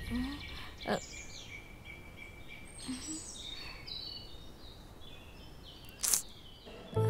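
Birds chirping over faint outdoor background noise, with sharp clicks about a second in and again near the end, the second the loudest sound.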